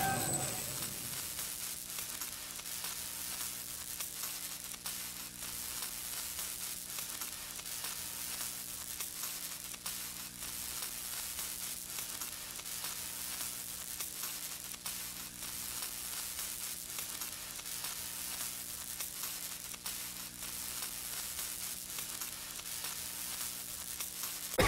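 Electric crackling sound effect: a steady sizzling crackle with a faint low hum underneath that sets in about a second in.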